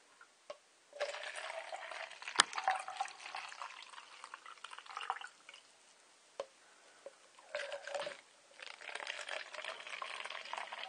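Liquid splashing and trickling in three stretches, broken by a few sharp knocks; the loudest knock comes about two and a half seconds in.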